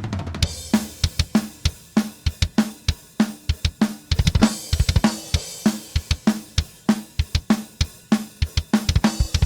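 Live-recorded metal drum kit playing a steady beat, with a snare hit about every half-second over kick drum strokes that come in fast runs, and hi-hat and cymbals throughout. A cymbal crash rings at the start. The kick and snare tracks have had just a little processing to even out their dynamics.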